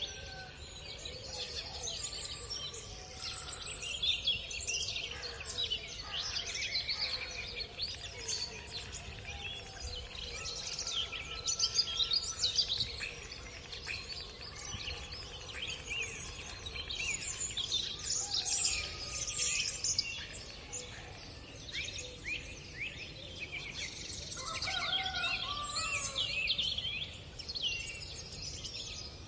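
Morning chorus of many small birds chirping and singing at once, the calls overlapping without pause. Underneath is a steady low background rumble, and a few lower, longer calls stand out near the end.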